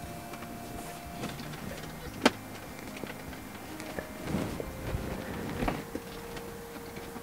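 Hands pressing and rubbing a thin adhesive-backed carbon fiber cover down onto a car's center console, with one sharp click a little over two seconds in and a faint steady hum behind.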